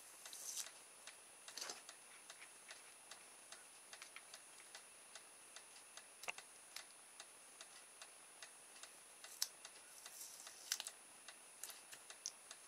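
Faint, irregular small plastic clicks and ticks as fingers handle a micro servo's plastic case and prise its bottom cover off.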